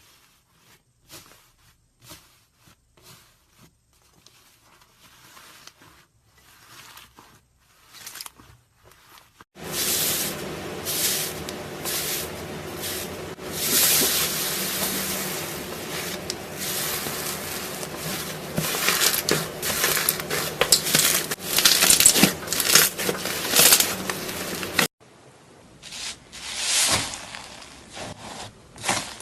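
Slime being squished and stretched by hand: sticky clicks, pops and crackles, quiet at first, much louder from about ten seconds in, dropping back sharply near the end.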